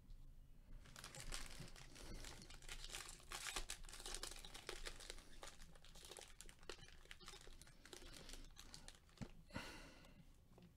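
Foil wrapper of a Topps Tier One baseball card pack being pulled open and crinkled by gloved hands: a dense, irregular crackle of foil, with a louder burst of crinkling near the end.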